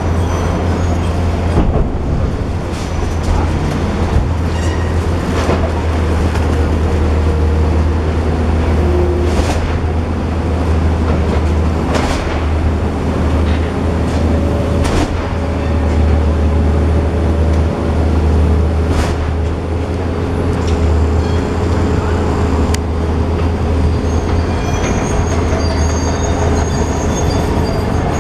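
Long-reach demolition excavator working: its diesel engine runs with a steady low hum while the grab breaks up masonry in a continuous rumble. Several sharp crashes of falling debris stand out, with thin metallic squeals near the start and end.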